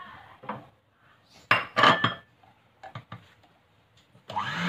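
Knocks and clinks against a stainless steel mixing bowl, loudest a couple of seconds in. Near the end an electric hand mixer switches on and runs steadily with a low hum.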